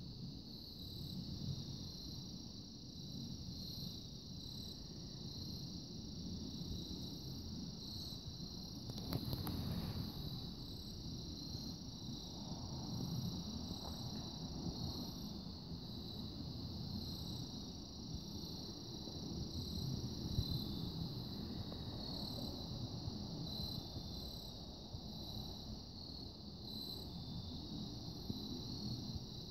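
Steady high-pitched chorus of crickets trilling, with soft low noise underneath and a single sharp click about nine seconds in.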